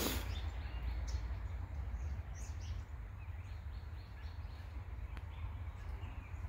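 Outdoor ambience: faint, scattered bird chirps over a steady low rumble.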